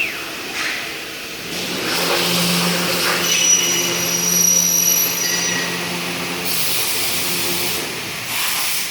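A CNC profile machining center running: a steady machine hum with a thin high whine from the spindle. A loud hiss comes in about six and a half seconds in and stops shortly before the end.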